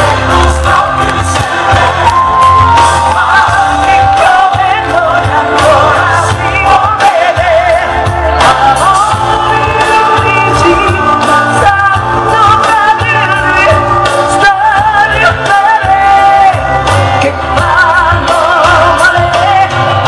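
A woman singing an Italian pop song live into a handheld microphone over loud amplified backing music with a heavy bass beat, holding long notes with a strong vibrato.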